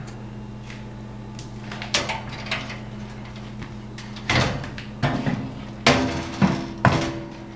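Knocks and clunks of a metal box fan being handled and moved, one bump about two seconds in and several sharper ones in the second half, over a steady low hum.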